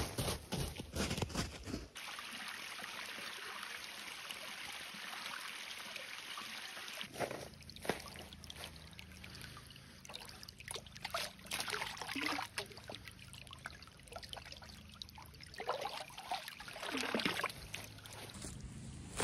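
Running water, a steady trickle for several seconds. It is followed by a faint low hum with scattered short knocks and rustles.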